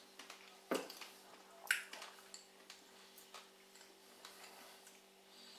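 Quiet chewing of whole ripe strawberries: a few short wet smacks and clicks, the loudest nearly two seconds in, over a faint steady hum.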